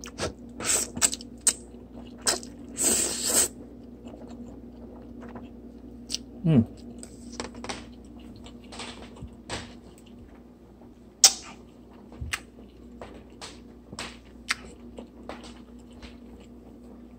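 A person eating spicy instant ramen with chopsticks: chewing, a slurp about three seconds in, and scattered sharp clicks of the chopsticks against the plastic tub.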